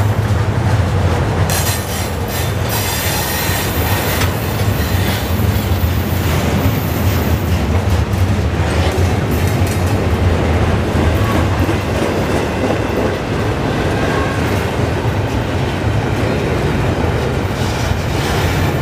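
Canadian Pacific double-stack intermodal freight train rolling past close by: a steady loud rumble of steel wheels on the rails, with some sharper metallic clatter in the first few seconds.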